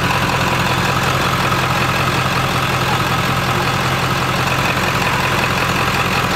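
Ford 7.3 Powerstroke V8 turbodiesel in a pickup idling steadily.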